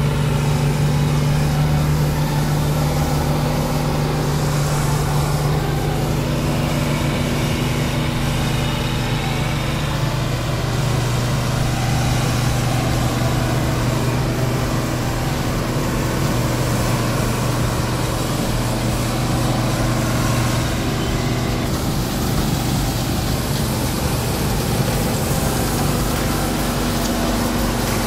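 New Holland 8070 combine harvester running steadily while harvesting rice, a continuous engine drone with the machine's cutting and threshing noise; the engine note drops slightly about ten seconds in.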